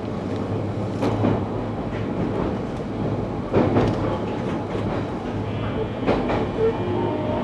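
Running noise heard inside the car of a JR Kyushu 813 series electric train: a steady rumble of wheels on rail, broken by a few sharp knocks as the wheels pass rail joints. A faint high tone comes in near the end.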